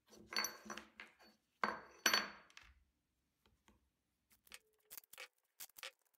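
Aluminium branding-iron stamp heads knocking and sliding against each other on a workbench, giving two ringing metallic clinks, the second about two seconds in. These are followed by a few light clicks and rustles as they are handled.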